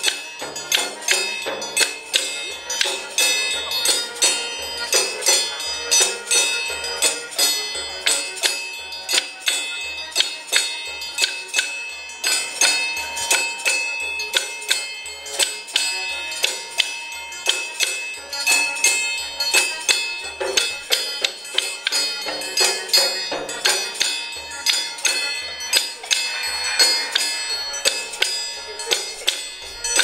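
Music with a steady beat: struck, ringing tones over a low pulse that comes a little more than once a second.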